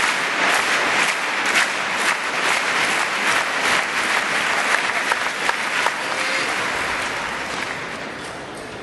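Crowd in a large arena hall applauding, a dense clapping that dies away over the last two seconds or so.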